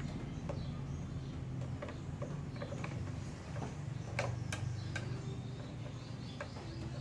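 Irregular small clicks and ticks of plastic parts and wires being handled at a window-type aircon's terminal block, the sharpest pair about four seconds in, over a steady low hum.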